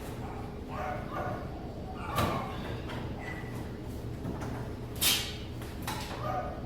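Dog barking, a few short sharp barks spread across several seconds, over a steady low hum.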